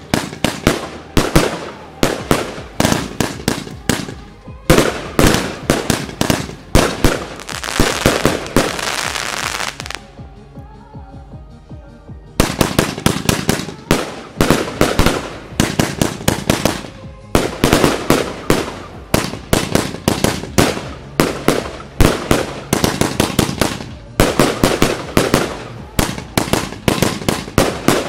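Rubro 'Hangover Box – Techno V' 144-shot fireworks cake firing rapid volleys, several shots and bursts a second. There is a short lull about ten seconds in, where faint music comes through, before the volleys resume.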